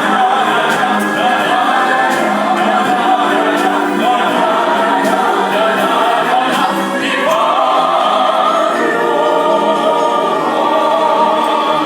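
A man and a woman singing a duet with musical accompaniment; the melody steps up in pitch about seven seconds in.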